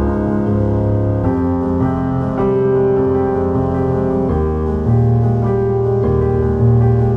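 Background music: soft piano chords, held notes changing every second or two.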